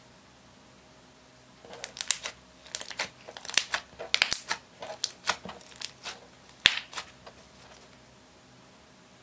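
Hands squeezing and kneading slime, giving an irregular run of sharp wet clicks and pops. It starts about two seconds in and dies away about a second and a half before the end.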